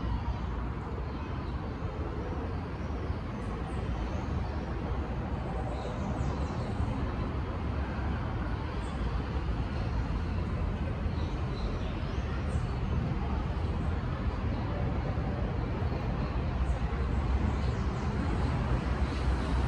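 Steady low outdoor rumble of background noise, gradually growing a little louder, with a few faint scattered high ticks.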